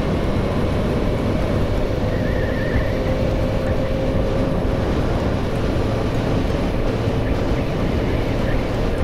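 Yamaha XJ600 motorcycle on the move: steady wind rush on the microphone with the engine running evenly underneath.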